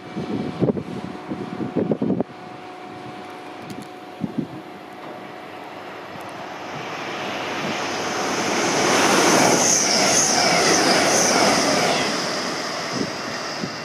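Express passenger train running through the station at speed. A rising rush of wheel and rail noise builds from about six seconds in, is loudest with a high whine as it passes, then fades. A few gusty thumps come in the first two seconds.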